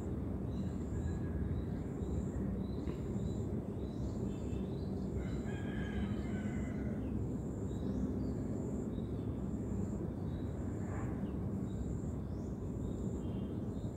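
Outdoor ambience: a steady low rumble, with a high buzz pulsing about once a second. Faint bird calls, including a longer call about five to seven seconds in.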